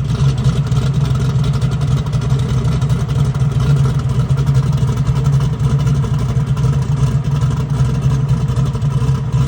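A vehicle engine running at a constant speed: a steady low hum that does not change pitch.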